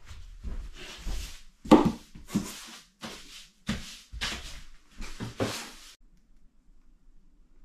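Broom sweeping a hard cabin floor: about nine short sweeping strokes, the loudest near two seconds in, stopping about six seconds in.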